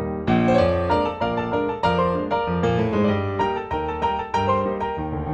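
Background piano music, a busy run of notes that gets brighter and fuller about a quarter of a second in.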